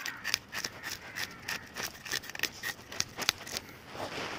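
Scales being scraped off a whole fresh fish in quick repeated rasping strokes, about three a second. The scales come off hard because the fish is freshly caught.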